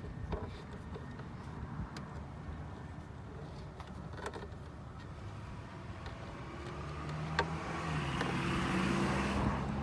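A motor vehicle running close by, growing louder over the last few seconds. Low rumble underneath, with a few light clicks scattered through.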